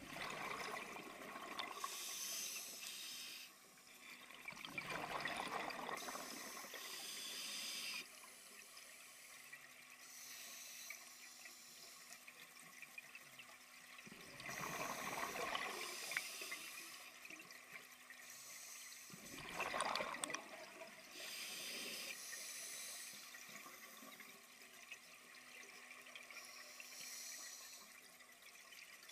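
Scuba diver breathing through a regulator underwater: a hiss on each inhale and a rush of bubbles on each exhale, in slow, regular breaths.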